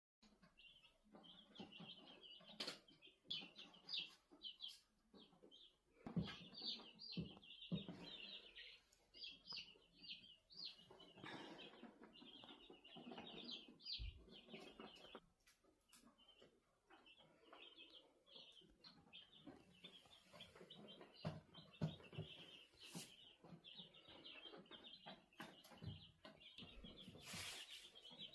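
Faint birds chirping in quick, repeated short notes, with scattered soft knocks and clicks.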